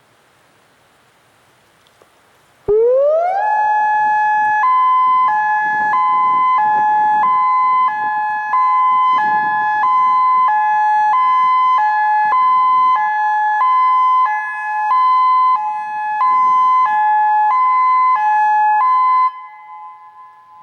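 Federal Signal Modulator 8032B electronic warning siren sounding its Hi-Lo tone, the flood warning signal. About three seconds in it sweeps quickly up to a steady tone, then alternates between a high and a low pitch, each held about half a second, and cuts off near the end, leaving a faint echo.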